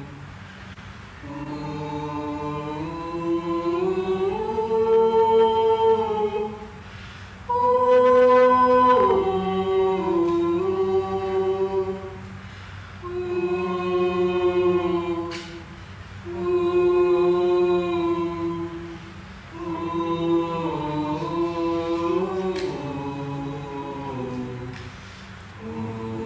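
Unaccompanied vocal music: voices singing slow, long-held phrases a few seconds each, with short breaks between them.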